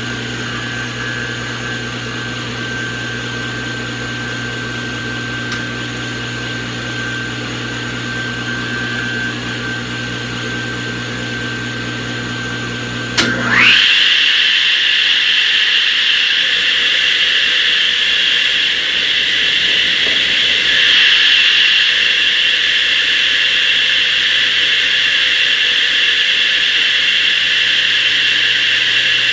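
A steady low hum, then about halfway through a click as a 16-inch DeWalt radial arm saw is switched on: its motor and blade spin up in a fast rising whine and settle into a loud, steady high whine, running free.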